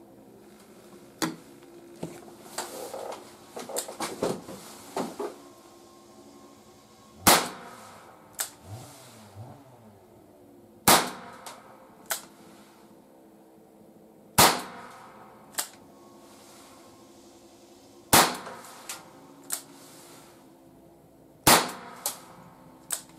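ALFA 461 Flobert revolver firing 4mm long rimfire rounds: five sharp cracks about three and a half seconds apart, each followed by a few lighter metallic clicks. A run of lighter clicks and handling knocks comes in the first few seconds, before the first shot.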